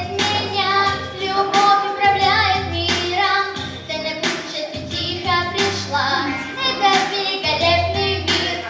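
A girl singing a song over a backing track with a steady beat, holding notes with vibrato.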